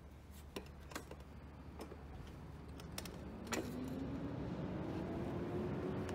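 Sharp metal clicks and clanks of a steel motorcycle center stand being stepped on and the bike rocked up onto it, the loudest clank about three and a half seconds in. Behind them a vehicle's hum swells from about halfway and stays loud.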